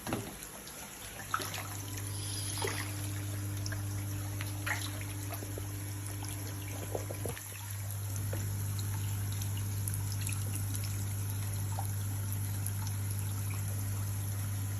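Water trickling and splashing at a fish-rearing tank, over a steady low hum that drops out briefly about halfway through, with scattered small clicks and splashes.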